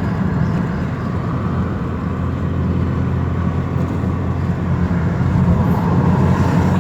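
BMW E90's 2.5-litre straight-six running through its dual-valve exhaust at a steady drone while driving, growing a little louder near the end.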